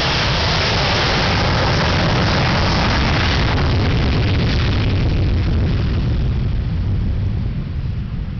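Loud jet engine noise from Blue Angels F/A-18 Hornets taking off in formation, steady at first, then fading from about six seconds in as the jets move away.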